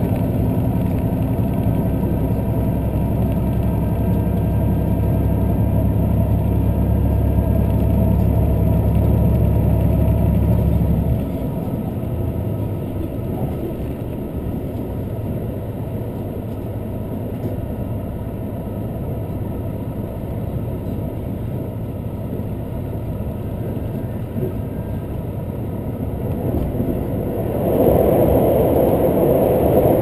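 Interior sound of a diesel express train running: a steady low engine drone with the wheels rumbling on the rails. About eleven seconds in the drone drops away and leaves the quieter running noise. Near the end the rushing grows louder again.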